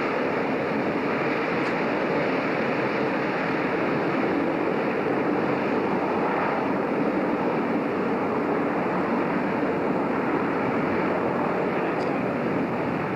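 Steady drone of a ferry under way, heard on board: engine noise mixed with the rush of water and waves against the hull, with no let-up.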